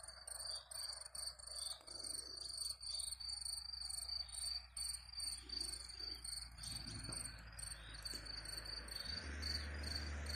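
Crickets chirping continuously in fast, pulsing trills, fairly faint. A low hum comes in near the end.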